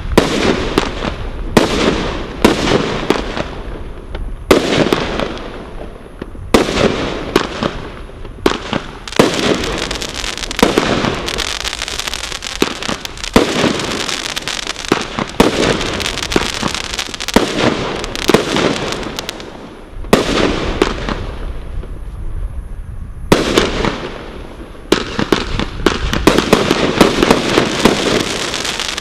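Category 2 combination roman candle firing: a steady run of sharp launch pops, one every second or so and faster in places, with crackling bursts between them. It eases off about two-thirds of the way through, then starts firing again for the rest.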